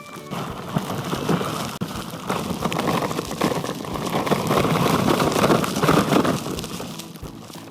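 Deep snow crunching and scraping as it is pushed through, a dense crackling rush that grows loudest in the middle and eases off near the end.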